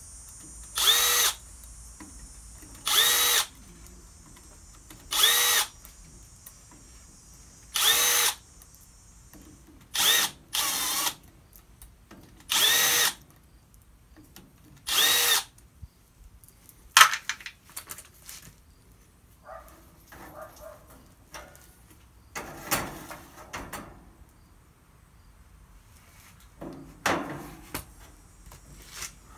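Power drill running in short bursts, about eight times in the first half, each spinning up with a brief rising whine, as it backs the perimeter bolts out of an electric winch's gearbox housing. Later come scattered knocks and clatter, with one sharp knock just past the middle.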